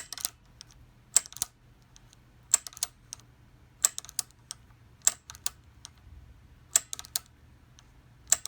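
Rebuilt igniter from a 25 HP Bessemer engine being tripped by hand and sparking off a coil and battery pack: a sharp snapping click followed by one or two lighter clicks, seven times, about every one and a half seconds. It is throwing a good spark, a sign the rebuilt igniter works.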